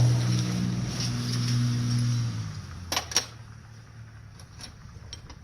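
A vehicle engine running with a steady low hum that fades away over the first two and a half seconds. Then come two sharp clicks about three seconds in, close together, and a few faint ticks.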